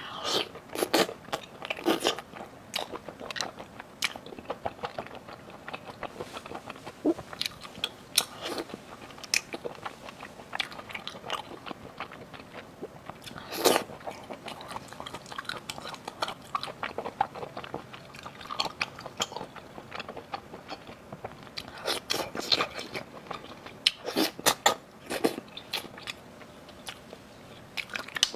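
Close-miked chewing and biting of seafood: a steady run of short, wet crunches and mouth clicks, with louder bursts of crunching about halfway through and again near the end.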